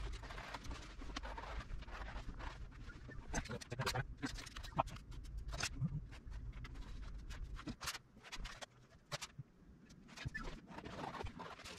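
Scattered crinkling, rustling and light clicks and taps from a sheet of vinyl wrap and its backing paper being unrolled, smoothed and measured with a yardstick. A steady low hum underneath stops about eight seconds in.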